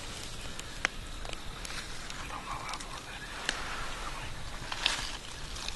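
Woodland ambience with rustling and a scatter of sharp snaps and clicks, as of movement in dry leaf litter and twigs; the loudest snaps come a little under a second in and about three and a half seconds in.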